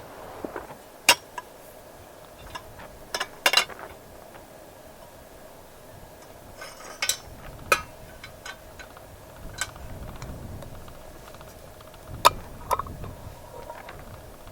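Cookware and utensils being handled, giving about ten sharp clinks and knocks at irregular intervals over a faint steady background hum.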